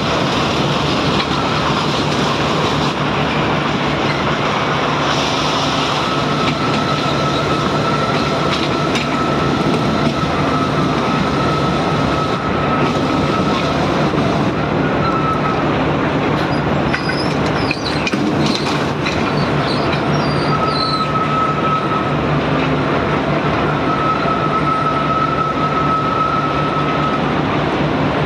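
Excavator at work: its diesel engine runs steadily with a constant low hum, while a high squealing whine comes and goes twice.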